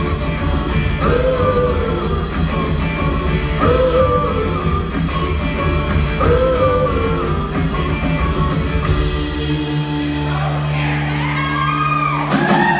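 Live band music: a woman singing lead over electric guitar, keyboards, drums and upright bass. A short phrase recurs about every two and a half seconds, giving way near the end to held low notes and gliding vocal lines.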